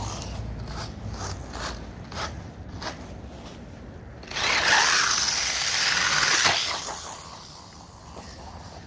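Electric RC monster truck's motor and gears whirring loudly at close range for about two seconds, then fading as the truck drives away.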